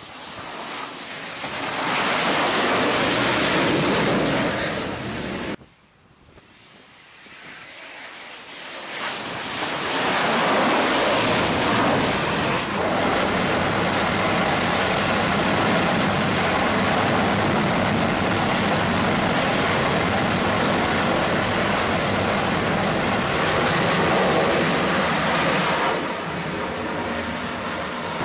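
F/A-18 Super Hornet jet engines on a carrier deck: a loud jet pass at the start, then after a sudden cut a high turbine whine that builds into long, loud jet noise at full power as a jet runs up on the catapult and launches, falling away near the end.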